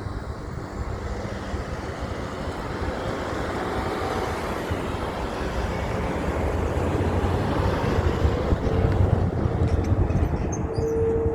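Heavy truck driving by, its engine rumble and road noise growing steadily louder as it approaches, with a single steady tone starting near the end.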